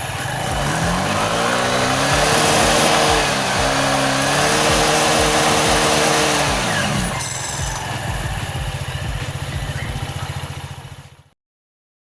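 Rusi RFI 175 scooter engine, with a racing clutch bell and lining in its CVT, revved up twice and held high for a few seconds each time, then dropping back to a steady idle. The sound cuts off abruptly near the end.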